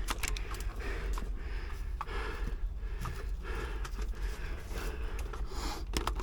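Breathing and rustling close to the microphone, with scattered light clicks and taps.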